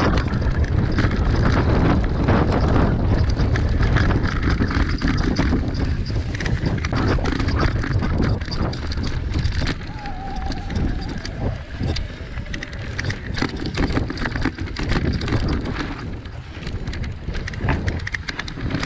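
Mountain bike riding fast down a dirt forest trail, picked up from the handlebars: knobbly tyres rumbling over dirt and roots, with the bike rattling and clattering over the bumps and wind buffeting the microphone.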